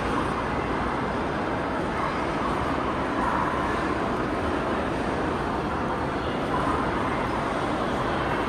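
Steady street background noise, mostly road traffic, with faint distant voices.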